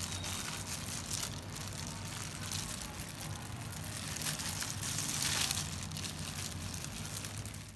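Thin plastic food-prep glove crinkling and rustling as a hand squeezes lime juice into a bowl of mussel salad and mixes it through, over a low steady hum.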